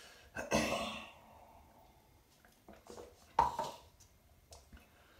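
A sip from a paper cup followed by an audible sighing exhale, then about three and a half seconds in a short sharp tap as the paper cup is set down on the counter.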